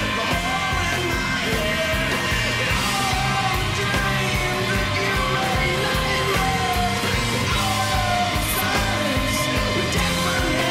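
Music with a singing voice over a full band, rock in style.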